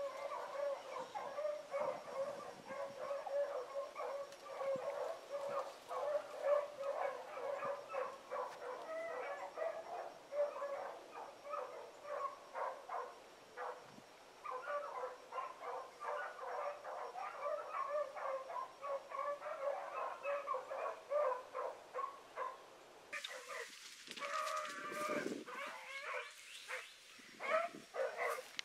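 A pack of rabbit hounds baying continuously, many overlapping short cries, as they run a rabbit on its trail. About 23 seconds in the baying breaks off and a hissy background with other short sounds takes over.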